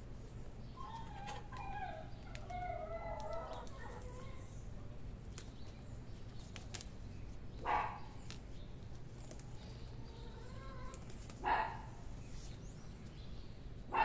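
Background bird calls: a wavering, several-toned call for about three seconds near the start, then three short, sharp calls spaced about four seconds apart, over faint clicks and rustles.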